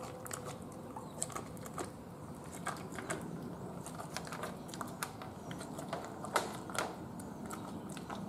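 American Bully chewing and licking a raw ground-beef satin ball, a steady run of irregular mouth clicks and smacks, with two louder ones later on.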